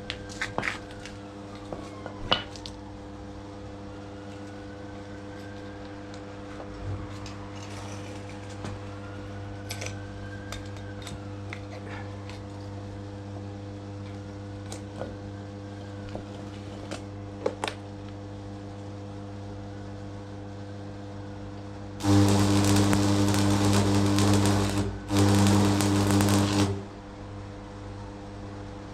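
DeWalt electric hammer motor run in two short bursts, about three seconds and then about a second and a half, over a steady background hum with scattered light clicks.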